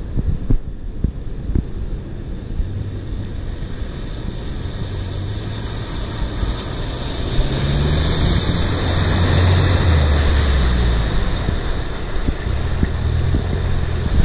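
Mitsubishi L200 pickup driving through a shallow river: its engine running under load with water splashing and churning from the wheels, both loudest about eight to ten seconds in as it passes close. Wind noise on the microphone throughout.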